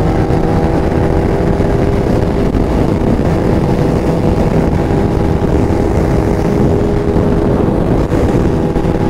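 Motorcycle riding at a steady speed, heard through an action camera's microphone: heavy wind rush over the mic with a steady engine drone held at constant revs.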